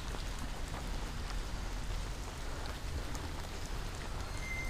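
Steady light rain falling, with scattered faint drop ticks over a low rumble. A short high whistle sounds near the end.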